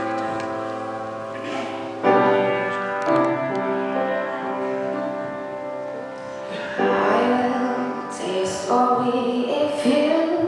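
A woman singing into a handheld microphone over sustained accompaniment chords; the voice comes in more strongly about two-thirds of the way through.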